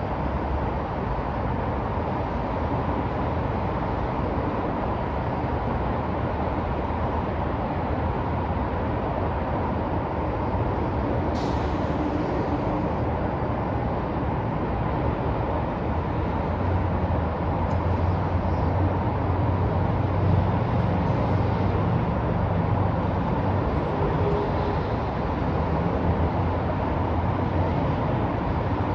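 Downtown street traffic: a steady wash of engines and tyre noise. A heavy vehicle's low engine rumble grows louder in the second half, and a short hiss comes about a third of the way in.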